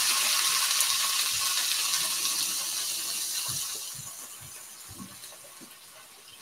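Bacon strips sizzling in a cast iron skillet, a high hiss that dies down steadily over several seconds.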